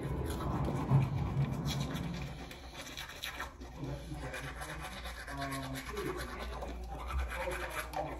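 Manual toothbrush scrubbing teeth and tongue through a mouthful of toothpaste, in irregular back-and-forth strokes.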